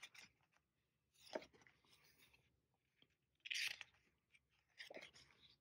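Sticker book pages being turned: a few short, faint paper rustles against near silence, the clearest about three and a half seconds in.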